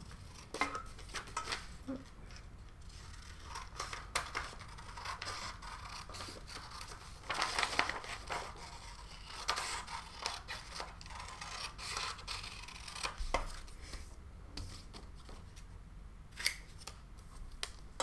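Scissors snipping through a sheet of paper in a series of cuts, with the rustle of the paper being handled.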